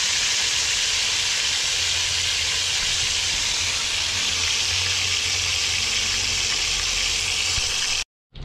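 Milkfish and eggplant frying in hot oil in a pan: a steady, loud sizzle that cuts off suddenly near the end.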